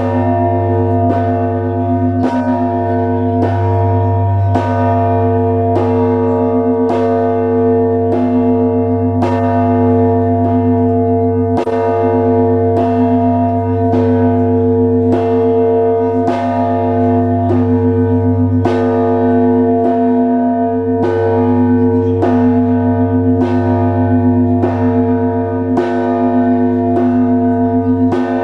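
Bells of the Trinity-Sergius Lavra bell tower rung in Russian Orthodox style: smaller bells struck in a steady, rapid rhythm of about two strokes a second over the deep, lasting hum of a large bell.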